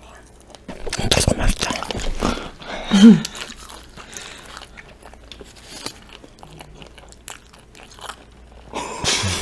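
Crunchy bites into fresh fruit and chewing close to a condenser microphone, loudest in the first two seconds and again near the end.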